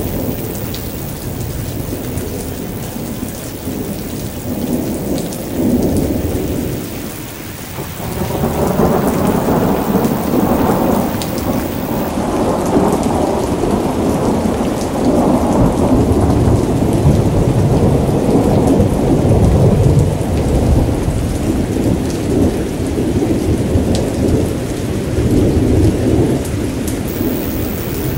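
Thunderstorm: steady rain falling with rolling thunder. The rumble eases about seven seconds in, then a long, deep roll of thunder builds about eight seconds in and keeps rumbling, swelling and easing.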